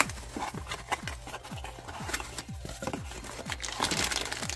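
Background music with a regular kick-drum beat, about two to three beats a second, under rustling, scraping and light clicks of packaging and tool-kit items being handled.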